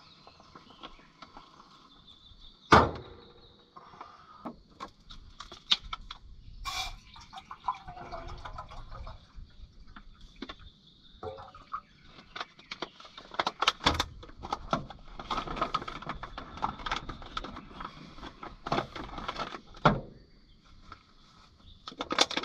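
Camp cooking gear being handled: scattered clicks, knocks and rustling, with one sharp knock about three seconds in.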